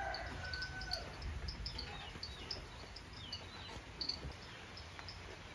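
A drawn-out animal call that ends about a second in, with small birds chirping repeatedly over a low rumble.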